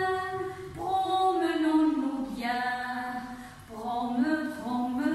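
Women's voices singing a French children's dance song without accompaniment, in long held notes.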